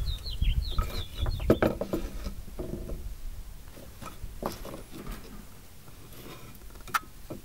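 Cut wooden boards being laid out and pushed together into a box frame on a plywood workbench: scattered light wooden knocks and scrapes, with one sharper click near the end.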